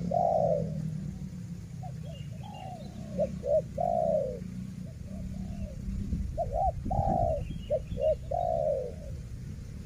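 Spotted doves cooing in about four phrases, each a few short coos ending in one longer falling coo, over a low steady rumble.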